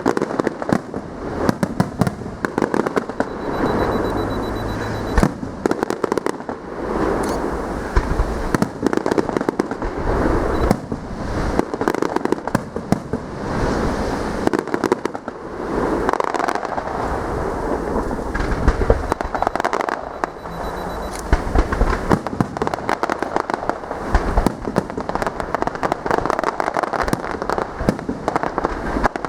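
Fireworks display: a continuous barrage of sharp bangs and crackling shell bursts, one after another with no pause.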